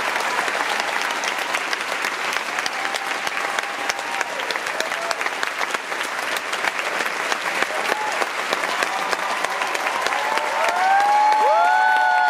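Theatre audience applauding steadily, with loud whoops and cheers rising over the clapping near the end as the applause swells.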